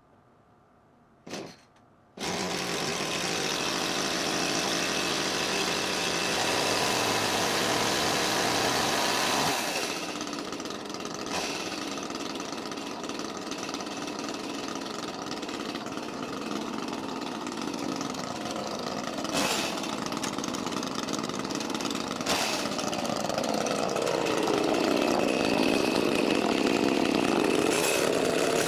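Echo CS-310 chainsaw's 30.5cc two-stroke engine running, coming in suddenly about two seconds in after near silence. It runs loud and high for several seconds, drops to a lower level about ten seconds in, and near the end its pitch dips and climbs again as the saw is brought to the stump.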